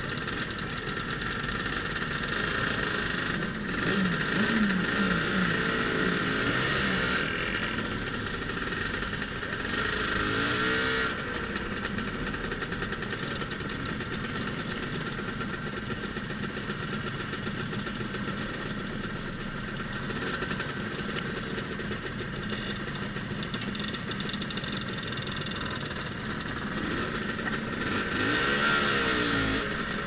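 Scooter engines running at low speed in a slow procession, with several scooters and motorbikes around. The revs rise and fall a few times: about four seconds in, around ten seconds in, and near the end.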